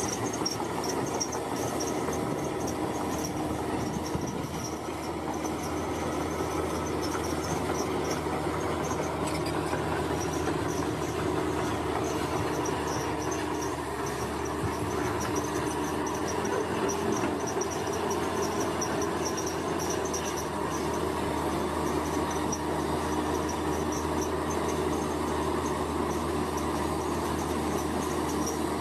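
Komatsu bulldozer running steadily as it works, its diesel engine under load and its tracks rattling, with a high, pulsing tone on top.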